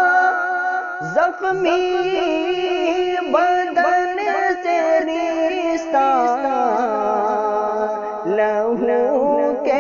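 A voice singing an Urdu nazam of sorrowful verses, a melodic recitation with long held notes and sliding, ornamented pitch.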